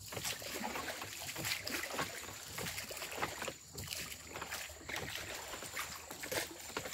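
Water splashing and lapping irregularly along the hull of a small wooden rowboat moving through calm water, with some wind on the microphone.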